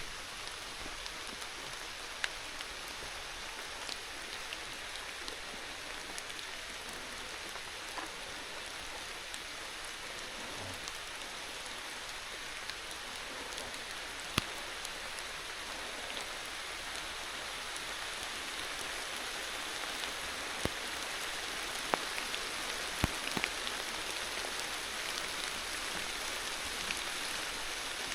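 Steady rain falling, with scattered sharp taps of single drops, growing a little louder in the second half.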